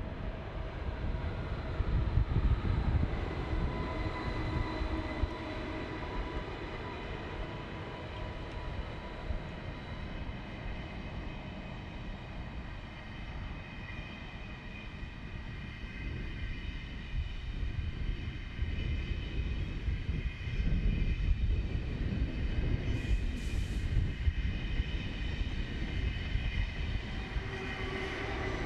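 An ICE 1 (Class 401) high-speed train rolls past at low speed: a continuous low rumble under a steady whine of several pitches, which grows stronger near the end as the power car comes close. A brief hiss sounds about 23 seconds in.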